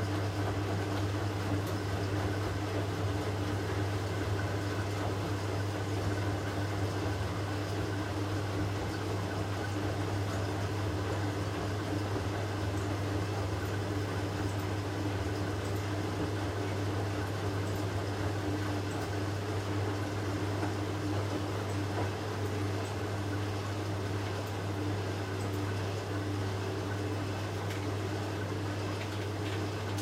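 Late-1980s Hoover Electron 1100 (A3394) front-loading washing machine running mid-cycle, its drum turning steadily through sudsy water. A steady low hum from the machine with water swishing over it, unbroken throughout.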